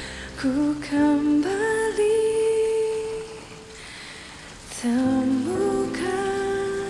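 Soundtrack music: a woman's voice humming a slow, wordless melody in two long phrases of held notes, the second phrase starting about five seconds in, over a soft low accompaniment.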